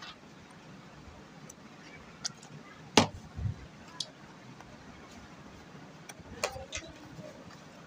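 A few scattered light taps and clicks of cardboard matchboxes and a card piece being handled and pressed into place on a wooden tabletop, the sharpest about three seconds in.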